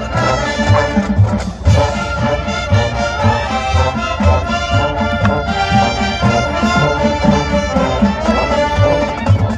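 Marching band playing, led by brass (trumpets and trombones), over a steady low beat.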